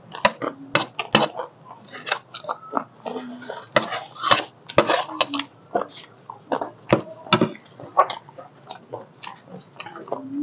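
Metal spoon clinking and scraping on a plate as the last of the chatpate is scooped up, mixed with close-miked chewing of the crunchy puffed-rice snack: a rapid run of sharp clicks and crackles.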